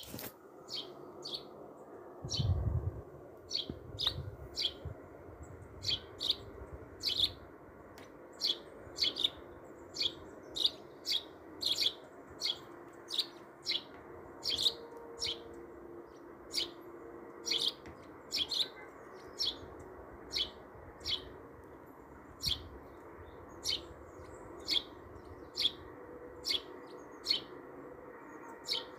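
A bird chirping over and over in short single chirps, about one to two a second, over a faint low hum. A couple of soft low thumps come a few seconds in.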